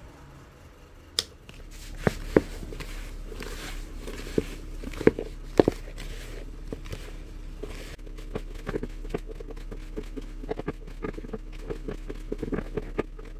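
Hands mixing and kneading a sticky, over-wet bait dough of food scraps and toast crumbs in a plastic bucket: scattered sharp knocks and squelches at first, becoming a quick run of small clicks and squishes from about eight seconds in.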